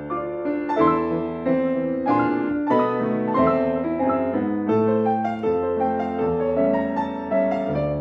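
Grand piano played four hands by two players: a duet of sustained chords under a melody, with a new chord struck roughly every half second.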